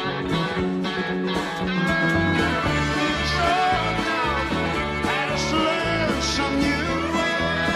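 A live rock band playing: piano, drums, bass and electric guitar, with a lead line that bends up and down in pitch.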